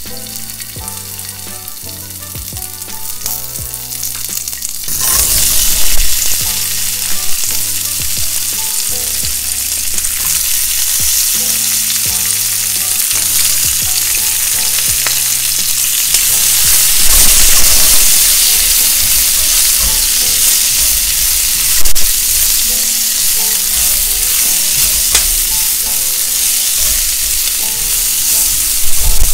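Chopped onion, bell pepper and green onion frying in hot oil in a nonstick skillet. A modest sizzle jumps to a loud, steady sizzle about five seconds in, and a few sharp knocks come later as the vegetables are stirred.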